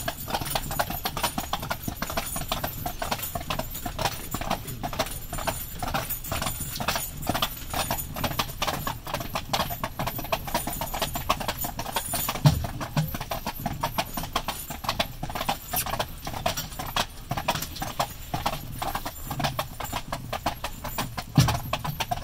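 Hooves of a pair of carriage horses clip-clopping steadily on a paved road as they pull a carriage. Twice, about halfway and near the end, a louder low thump stands out.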